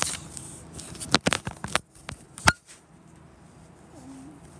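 Handling noise from fingers on the phone over its microphone: a run of rubs, crackles and knocks in the first half, the sharpest knock about two and a half seconds in, then quieter.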